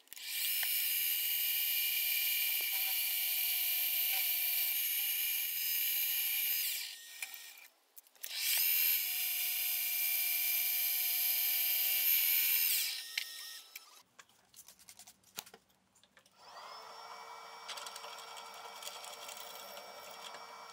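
Sieg X2.7L mini mill spindle running at speed with a high-pitched whine while drilling a small hole in 4140 steel. It runs twice, for about six and five seconds, winding down each time. After a pause of a few seconds it starts again at a lower, quieter pitch, rising as it spins up.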